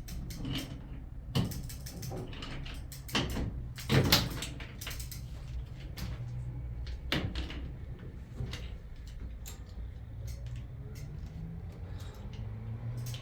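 Scattered knocks and clatter of things being handled, the loudest about four seconds in, over a steady low hum.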